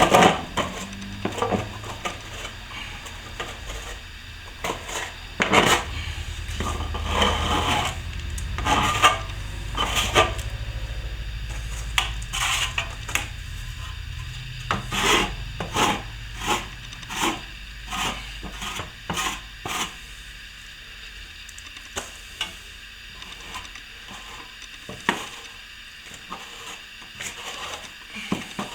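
Steel plastering trowel scraping over a wall patch of plaster in many short, irregular strokes.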